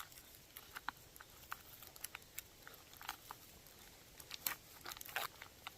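Hardwood fire crackling in a small flat-pack grill, with irregular sharp pops and snaps at a low level.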